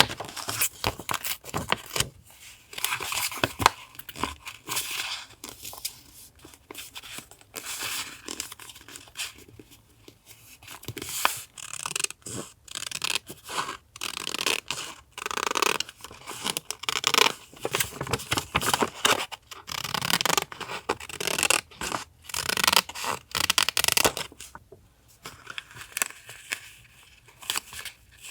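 Paper handled for a vintage collage journal: crisp, irregular rustling, cutting and tearing strokes in quick runs with short pauses.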